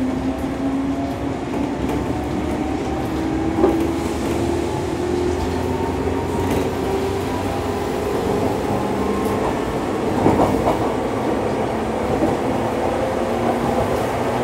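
JR West 115 series electric train heard from inside the car: its MT54 traction motors whine, the pitch climbing slowly as the train gathers speed, over steady running noise. A couple of short knocks come from the running gear.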